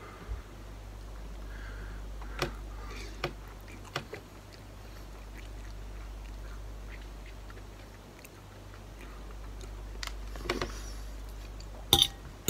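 A person chewing a mouthful of ramen noodles, with a few light clicks of a metal fork against the bowl and two sharper clinks near the end. A steady low hum runs underneath.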